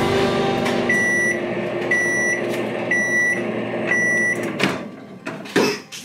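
An electronic appliance beeping four times, about once a second, each beep a steady high tone over a steady hum. The hum stops near the end, followed by a few sharp knocks and clatter.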